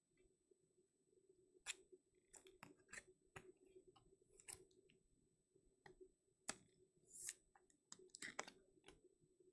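Faint, irregular clicks and short scrapes of trading cards and hard plastic toploaders being handled as cards are slid into the holders.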